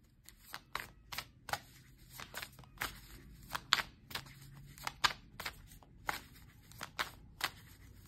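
Oracle card deck being shuffled by hand: an irregular run of sharp card snaps and taps, two or three a second.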